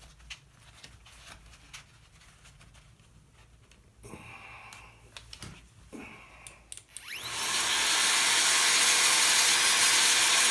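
Light handling taps and clicks, then about seven seconds in a small electric power tool starts up with a brief rising whine and runs steadily and loudly.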